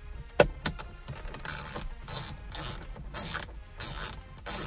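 Small screwdriver backing out T10 Torx screws from a dashboard display mount. Two sharp clicks come first, then a short clicking rattle with each turn, about twice a second.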